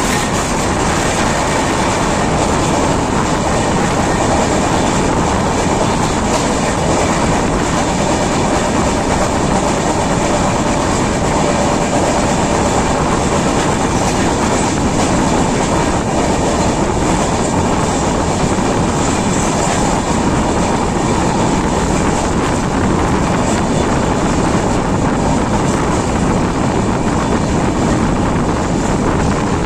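Running noise of a passenger express train at speed, heard through an open coach window: a steady rumble of wheels on the rails with the clickety-clack of rail joints.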